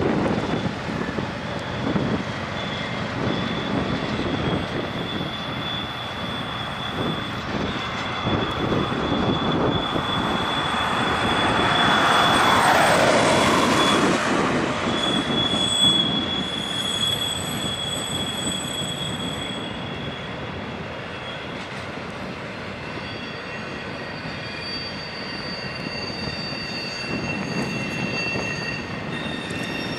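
CSX double-stack intermodal freight train rolling past: the trailing GE ES44AH diesel locomotive at first, then loaded well cars, with wheels rumbling on the rails and a steady high-pitched wheel squeal. It grows loudest near the middle and eases off toward the end, with more squealing tones joining in.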